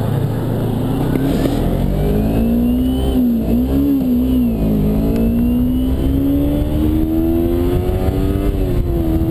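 Kawasaki Ninja 250R's parallel-twin engine accelerating from a slow roll. Its pitch rises, dips briefly at gear changes about three and five seconds in, then climbs steadily in a higher gear, over wind noise.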